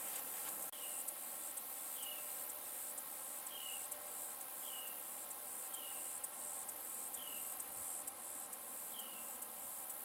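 Insect chorus: a steady high-pitched trilling hiss with faint regular pulsing, with a short falling chirp repeated every second or so.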